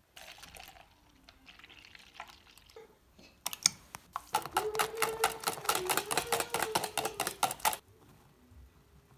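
Rapid clicking of a utensil beating the pancake batter ingredients in a ceramic bowl, for about four seconds in the middle, with a steady ringing tone underneath; fainter rustling and scraping before it.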